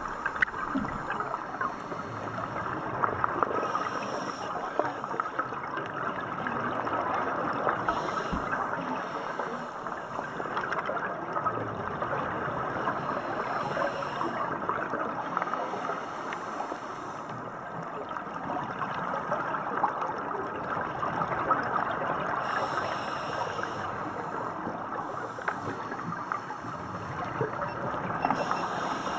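Underwater reef sound heard through a camera housing: a steady dense crackle, with short hissing bursts of scuba divers' exhaled bubbles every few seconds.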